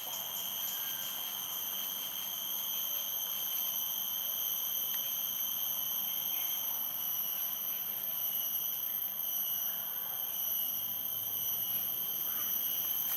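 Insect drone holding one steady, high-pitched tone with higher overtones, unbroken and unchanging.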